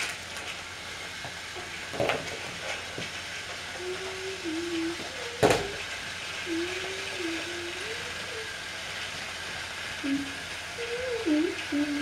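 Motorized Fisher-Price TrackMaster toy engines whirring steadily along plastic track, with sharp plastic clacks about two and five and a half seconds in. A soft, wavering hum comes in short phrases over the whir.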